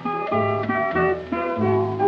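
Instrumental opening of a 1936 steel-guitar blues record: a National steel guitar picking a run of quick single notes over low bass notes from a piano, with no singing yet.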